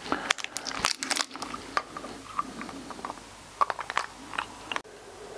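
Irregular small clicks, taps and scrapes of AAA batteries being handled and loaded into a small handheld torch.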